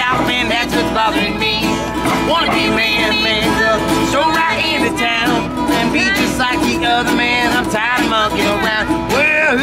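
Street duet: a man and a woman singing a folk-country song together while strumming acoustic guitars.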